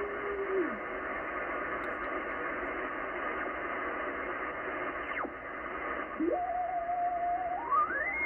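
Yaesu FTdx10 shortwave transceiver in upper sideband being tuned across the 10-meter band: steady band-noise hiss with signals whistling as the dial passes them. A whistle falls in pitch at the start and another about five seconds in. About six seconds in, a whistle rises, holds steady for over a second, then climbs higher near the end.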